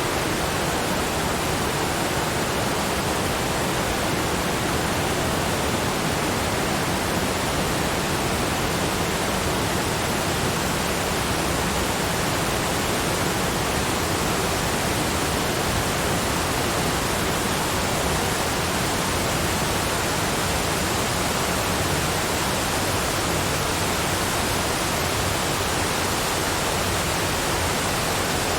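Waterfall falling in a steady, unbroken rush of water, an even hiss spread across low and high pitches alike, with no change in level.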